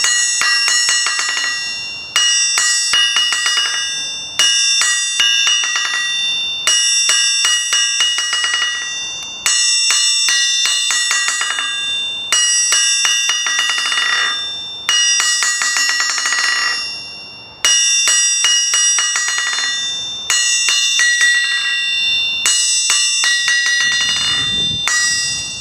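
A hand hammer bounced on the face of a freshly hardened and tempered anvil, about every two and a half seconds. Each drop gives a quick run of rebound taps and a bright ringing that fades before the next one. The rebound is lively, showing the hardened face, while the ring is somewhat deadened, which the owner puts down to slag still left on the anvil.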